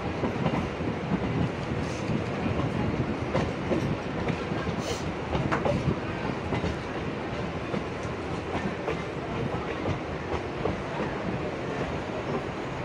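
MEMU passenger train rolling slowly into a station, heard from its open door: steady wheel rumble on the rails with irregular clacks over rail joints.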